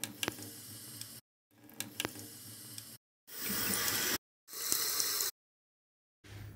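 Short edited-in noisy sound effects, each cut off sharply into dead silence: two stretches of rustling noise with scattered clicks, then two louder hissing bursts, each about a second long.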